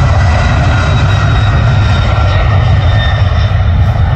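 Twin-engine jet cargo plane's engines at takeoff power: a loud steady rumble with a faint high whine on top.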